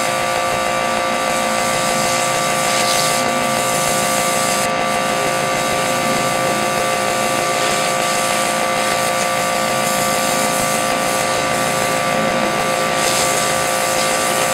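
A 2000 psi pressure washer running steadily, its motor giving a constant hum, with the hiss of the water spray swelling and fading a few times.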